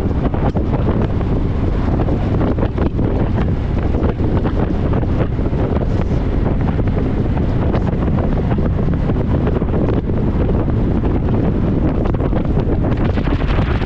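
Wind buffeting the microphone: a loud, steady low rumble that holds at the same level throughout.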